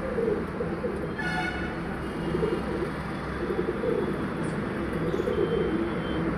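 Domestic pigeons cooing, many low coos overlapping in a steady murmur from the flock.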